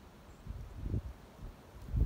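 Wind buffeting the microphone: low rumbling gusts about half a second in and again near the end.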